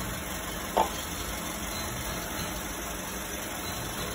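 Toyota Calya engine idling steadily at operating temperature, a plain even running noise. A single short, sharp knock sounds about a second in.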